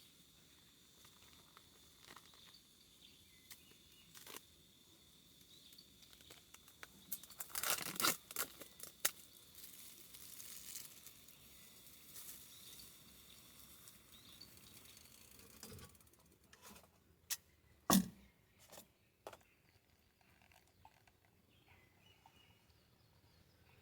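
Quiet handling noises: scattered light clicks and rustles, a cluster of them about eight seconds in and a single sharper knock about eighteen seconds in.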